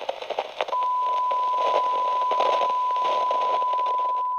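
Tape-and-TV static hiss with crackles, joined under a second in by a steady, unbroken test-tone beep of the kind played over colour bars, which holds at one pitch over the static.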